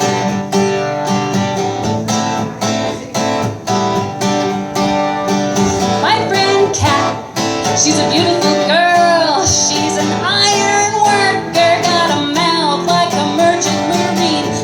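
Acoustic guitar strummed in a steady rhythm as a song's introduction, joined about six seconds in by a gliding, wavering melody line.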